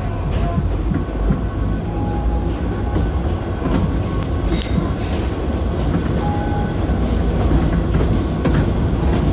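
Kurobe Gorge Railway narrow-gauge passenger car running, heard from on board: a steady low rumble of wheels on rail with scattered clacks and a few brief thin squeaks.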